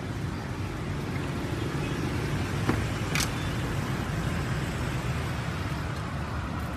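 Steady rumble of street traffic, with two short clicks around three seconds in, the second one sharp, as a car's rear door is unlatched and swung open.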